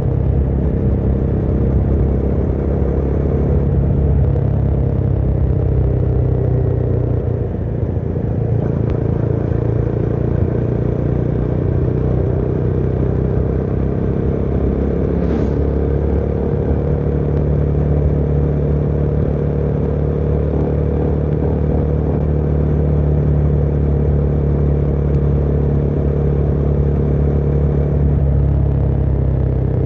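Motorcycle engine running steadily while riding. Its pitch eases down and the level dips slightly about seven to eight seconds in, then holds steady again.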